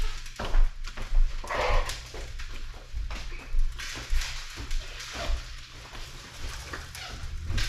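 A spoon stirring a thick maja blanca pudding mixture in a cooking pot, with repeated short scraping, squelching strokes against the pot.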